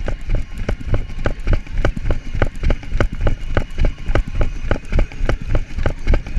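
A runner's footfalls on asphalt at a fast pace: a steady, even rhythm of about three strides a second.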